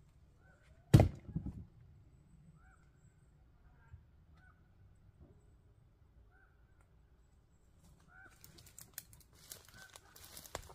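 A firewood round dropped into a wheelbarrow about a second in: one heavy thud with a few smaller knocks as it settles. Faint short bird calls repeat throughout, and from about eight seconds footsteps crunch through dry leaves and brush.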